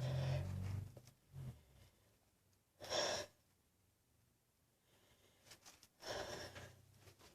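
A woman with a sniffly nose breathing and sniffing: a breathy, half-voiced intake, one short sharp sniff about three seconds in, and a longer breathy sigh near the end, the kind of breathing that comes before a sneeze.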